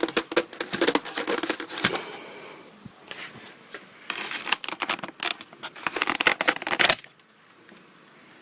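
Packaging being handled: rustling, crinkling and clicking in two spells, stopping abruptly about seven seconds in.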